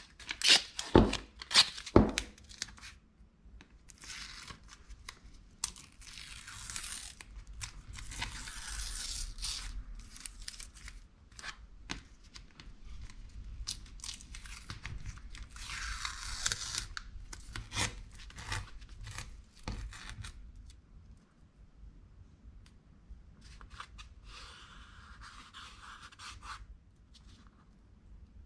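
Masking tape being pulled off the roll and torn into strips by hand, in several separate stretches of peeling and tearing a second or more long, with a few sharp clicks near the start.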